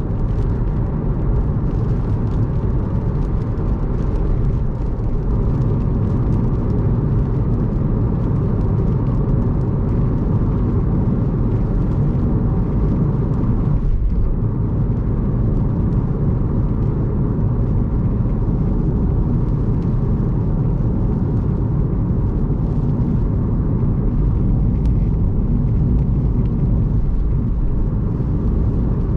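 Steady low rumble of a car's tyres on a rain-soaked expressway at speed, with faint spatter from the wet road.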